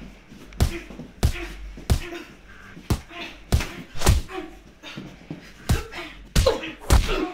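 Boxing gloves landing punches: about ten sharp smacks at uneven intervals, with short grunts between them.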